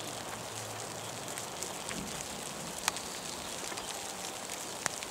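Steady patter of rain with scattered sharp ticks of individual drops landing close by, the two loudest about three seconds in and near the end.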